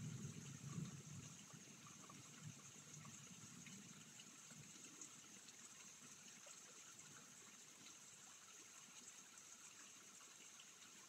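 Faint rain falling and trickling at night, an even fine patter. A low rumble fades out over the first few seconds.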